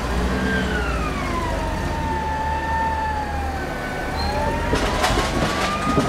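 Propane-powered Yale forklift engine running as it handles a pallet, with a slow wailing tone that falls and then rises again. A quick cluster of knocks and rattles comes about five seconds in.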